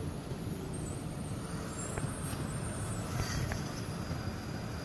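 Steady low rumble of vehicles, with two faint clicks about two and three and a half seconds in.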